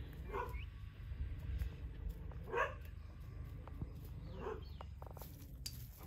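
A dog barking: three short barks about two seconds apart.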